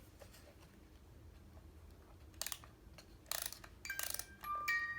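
Wooden music box robot model being handled, with a few short scraping clicks from its mechanism. Near the end its music box movement starts plinking a tune in high, ringing metal-comb notes.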